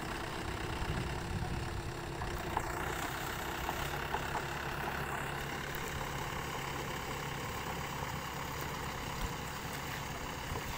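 Diesel engine of a Mahindra 595 Turbo tractor running steadily under load as it pulls a levelling board through wet paddy mud.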